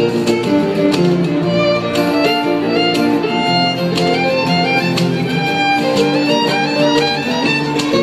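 Live acoustic string band music: a fiddle plays a moving melody over strummed acoustic guitar.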